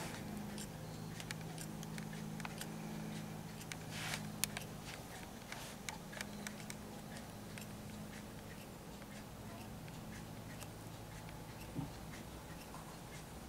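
Scattered light clicks and ticks at irregular intervals over a low steady hum, the hum fading out about halfway through.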